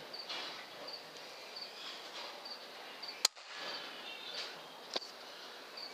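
A single sharp shot from an FX Impact M3 .22 PCP air rifle a little past three seconds in, with a fainter click near five seconds. Underneath, a faint high chirp repeats about every half second.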